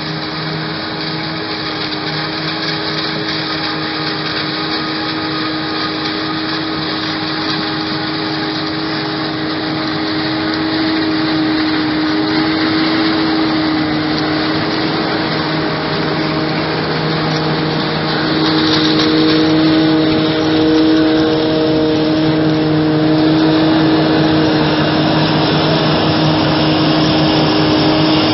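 Self-propelled forage harvester chopping maize with its engine and chopping drum running at full working speed, and a tractor pulling a silage trailer alongside: a steady, loud mechanical drone with a humming tone over a rushing noise. It grows louder in the second half as the machines come closer.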